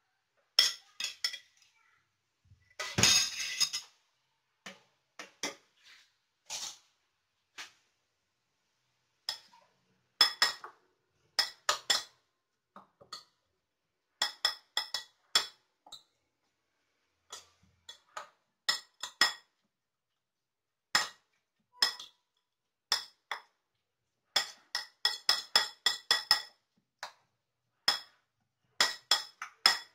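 Utensil clinking against a ceramic bowl while beating an egg, grated carrot and spring onion filling. The clinks come in irregular clusters of quick strikes, with a longer scraping rush about three seconds in.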